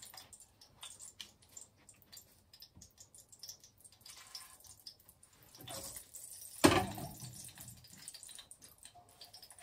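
Breaded pork chops frying in a cast-iron skillet as they are laid in, a slow crackle of small pops and ticks. One loud knock about two-thirds of the way through.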